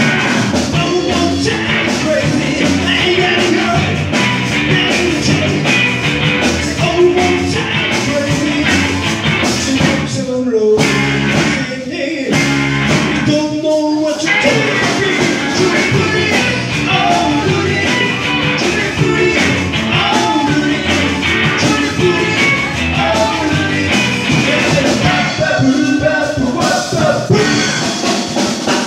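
Live rock and roll band playing on electric guitars, bass guitar and drum kit. About ten seconds in the band drops out briefly between a few hits, then comes back in.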